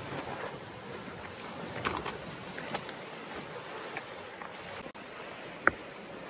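Steady outdoor wash of wind and small waves on a cobble beach, with a few sharp clicks scattered through it and one louder click near the end.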